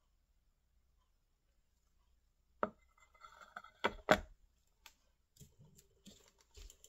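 A few light knocks and taps as a paint-covered tile is set down and shifted on the turntable: one sharp tap about two and a half seconds in, two louder knocks close together about a second later, then softer taps and rustling.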